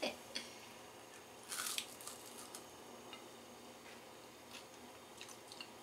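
A bite into a crisp, golden-fried masa sope: one short crunch about a second and a half in, followed by a few faint chewing clicks.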